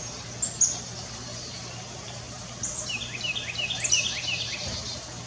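Birdsong: two short high chirps near the start, then a quick series of repeated chirping notes from a little past halfway, over a steady low hum.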